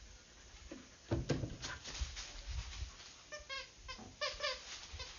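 A couple of sharp knocks about a second in, then a cat meowing twice in short calls near the end.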